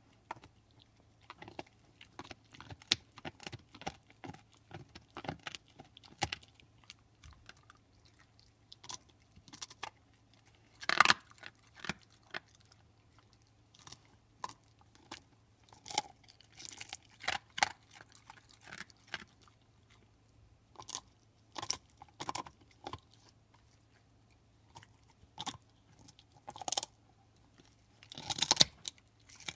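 Pit bull chewing on a big beef bone: irregular crunches and cracks of teeth on bone, with a few louder cracks about eleven seconds in and near the end.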